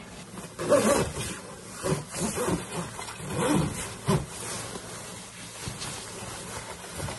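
Puffer jacket fabric rustling as the jacket is pulled on and the hood drawn up. Several short, low, voice-like sounds come through in the first half.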